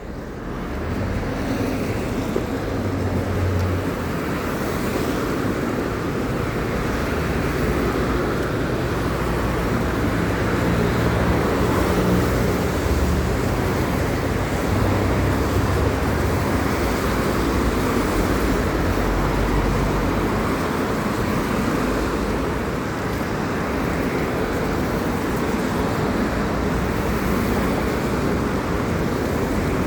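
Steady outdoor noise of road traffic with a low, uneven rumble of wind on the microphone.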